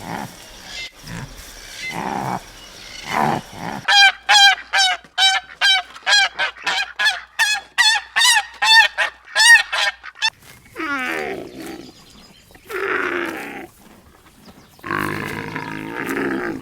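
Farm animals calling in turn: low grunts repeated for the first four seconds, then a fast run of pitched, honking calls, about two a second, for six seconds, then three longer calls, the first falling in pitch.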